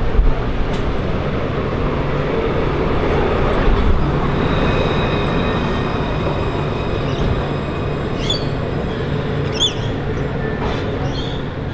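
Alstom Citadis C2-class low-floor tram passing close by on street track: a loud, steady rumble of wheels on rail with a thin, steady high whine as it goes by. A few short high squeaks come near the end.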